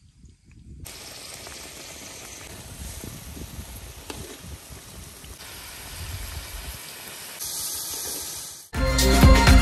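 Whole fish cooking in hot red chili oil in a wok: a steady sizzling hiss. Loud music comes in suddenly near the end.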